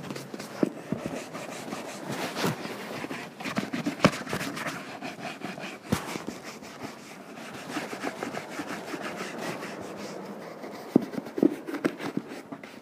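Small brush with big bristles scrubbing dust and dirt off the welt of a leather boot: a continuous scratchy rubbing of quick back-and-forth strokes, with an occasional sharper knock.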